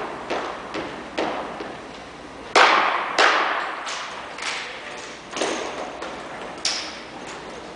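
Sharp knocks and slaps of drill rifles being handled during rifle drill: a series of separate impacts, some in unison, echoing in a large gym, the loudest two about two and a half and three seconds in.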